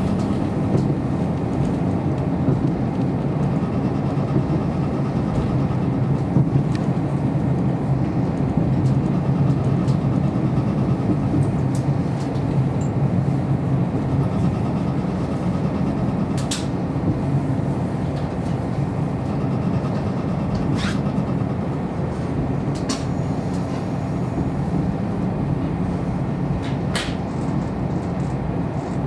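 A KiHa 54 diesel railcar running along the line, heard from inside the cabin: a steady low rumble from the engine and the wheels on the rails, with about five sharp clicks at intervals.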